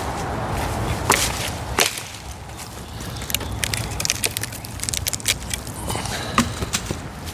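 Wood cracking and splintering by hand, without a chainsaw: two sharp cracks in the first two seconds, then a run of quicker, smaller snaps and crackles.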